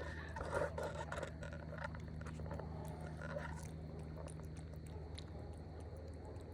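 A cat eating, with chewing and small scraping clicks that thin out after about four seconds. A steady low hum runs underneath.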